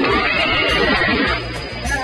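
Background music with guitar, loudest over the first second and a half and then settling into a steady low beat.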